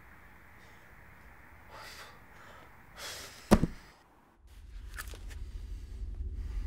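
Designed film sound effects: a short rising rush that ends in a single heavy hit about three and a half seconds in, a moment of near silence, then a low rumbling drone that swells steadily.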